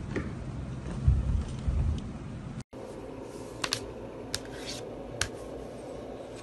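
A few dull low thumps, then a handful of sharp single clicks of laptop keys over a faint steady hum.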